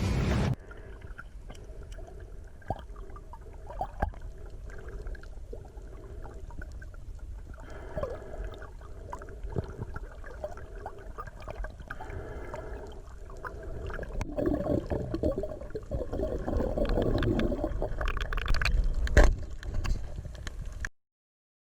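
Underwater sound through a diving camera's housing: a low, muffled wash of water with scattered sharp clicks, growing louder in the last several seconds before it cuts off suddenly.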